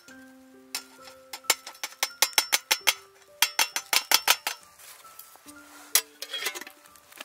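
Cheap 100-yen-shop stainless steel fire stand clinking and rattling against a stainless steel fire-extinguishing pot as it is set down inside it: two runs of sharp metal clinks, then a few more near the end, over soft background music.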